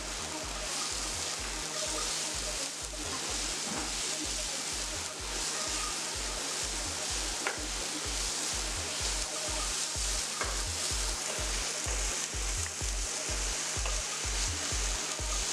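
Shredded cabbage and vegetables sizzling in hot oil in a nonstick frying pan while a wooden spatula stirs and tosses them, with a couple of sharp clicks of the spatula against the pan.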